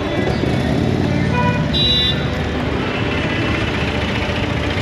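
A motorcycle engine runs amid road traffic, with a short horn toot about two seconds in.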